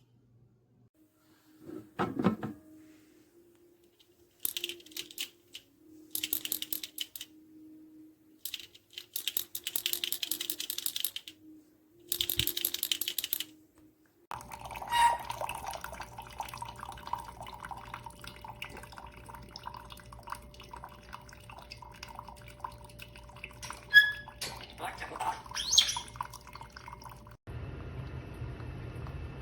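OXO Brew drip coffee maker brewing: water hissing and gurgling in short bursts over a steady hum, then a steadier background with a few clicks after a sudden change about halfway.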